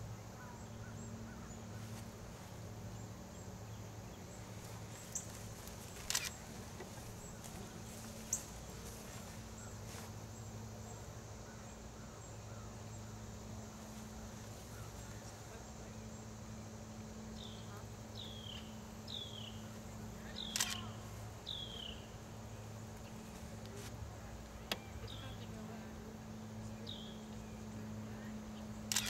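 Outdoor ambience under a steady low hum. There are a few sharp single clicks, and in the second half a series of short falling chirps from a bird calling.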